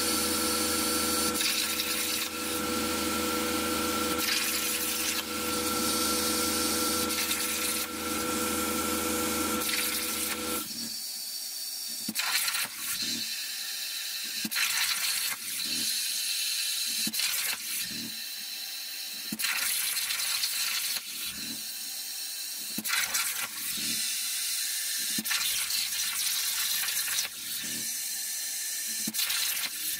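Air plasma cutter (Jasic Cut 45) on a CNC table, its torch hissing over a steady hum for about the first ten seconds. The hum then stops and the hiss comes and goes in short bursts with brief gaps for the rest of the time.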